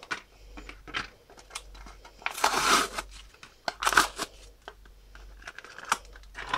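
Clear plastic blister packaging being pried and pulled open by hand: scattered sharp plastic clicks and crinkles, with two louder crackling rustles about two and a half and four seconds in.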